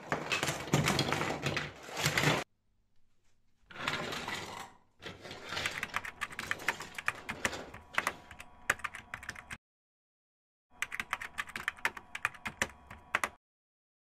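Small hard plastic 3D-printed parts clattering and rattling as they are handled and tipped out by hand among plastic storage crates. It comes in four spells of dense clicking, with short pauses between them.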